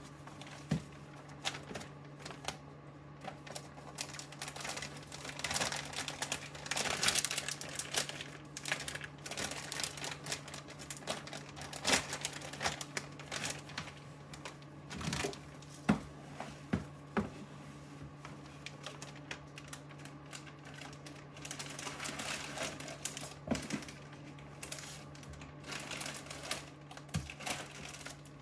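Clear plastic mushroom grow bags crinkling and rustling as they are pulled apart and opened by gloved hands, with irregular sharp clicks and taps. A steady low hum runs underneath.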